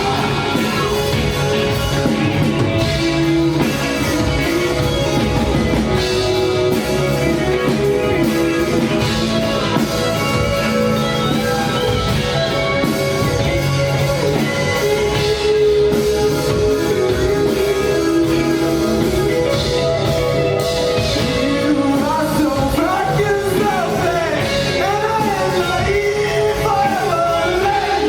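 Rock band playing with a singer.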